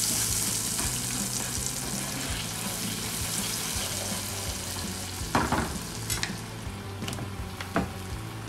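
Butter, minced garlic and brown sugar sizzling in a frying pan while a spatula stirs it, with a few sharper scrapes of the spatula against the pan, the loudest about five and a half seconds in.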